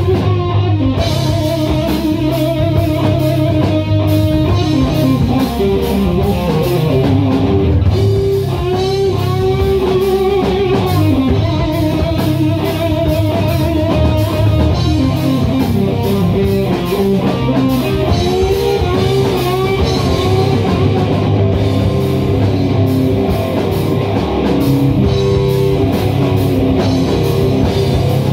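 Rock band playing instrumentally: electric guitars over a Mapex drum kit, with a lead line that bends in pitch above a steady low riff and cymbals running throughout.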